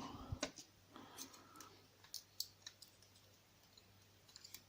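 Faint, scattered light clicks and taps of tiny metal parts being handled: the pins of a gutted CISA oval cylinder. There are a few clicks about every half second in the first three seconds, then a small cluster near the end.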